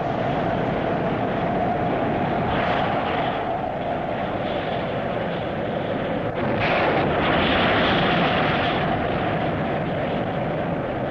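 A steady rushing roar of a spacecraft's rocket engine, as a TV science-fiction sound effect. It swells briefly about a quarter of the way in and grows louder for a couple of seconds past the middle.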